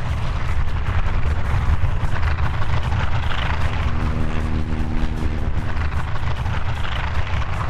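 North American T-28 Trojans' radial engines and propellers running as several of the aircraft taxi in a line: a loud, steady low rumble with a fast pulse.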